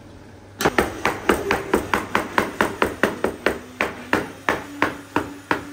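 A metal bench scraper chopping a floured rope of gnocchi dough into pieces on a wooden board: a rapid, even run of knocks, about five a second, starting about half a second in.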